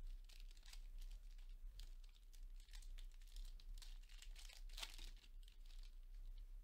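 A 2024 Bowman Chrome foil card pack being torn open and crinkled by hand: faint, irregular crackling, strongest about five seconds in.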